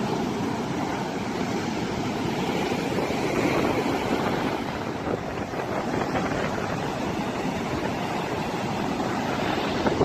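Rough surf breaking and washing up a sandy beach, a steady rushing of waves, with wind blowing on the microphone.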